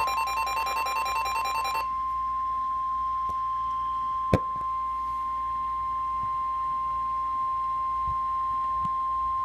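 NOAA Weather Radio warning alert tone: one steady, high 1050 Hz tone held for the whole stretch, signalling an emergency alert about to be read. For the first two seconds it overlaps a buzzing, pulsing sound, and a single sharp click comes about four seconds in.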